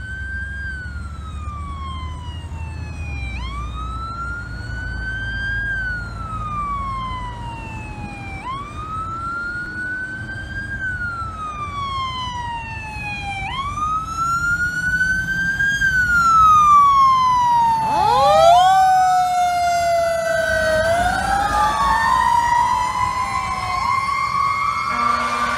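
Fire truck siren wailing, its pitch rising and falling in slow cycles about every five seconds, growing louder as the aerial ladder truck draws near. From about three quarters of the way in, further sweeping siren tones overlap the wail.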